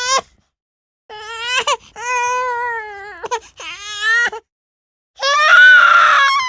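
Baby crying: several separate wailing cries broken by silent gaps, some rising and falling in pitch, the last and loudest starting about five seconds in.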